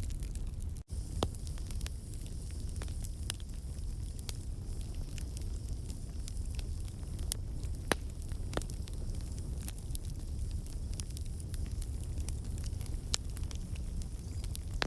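Wood campfire burning, with irregular crackles and pops over a steady low rumble. The sound cuts out for an instant about a second in.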